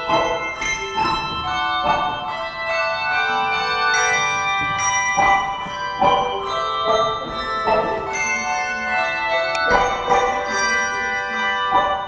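Handbell ensemble playing: chords of struck handbells in a steady rhythm, each stroke leaving bright tones ringing on and overlapping the next.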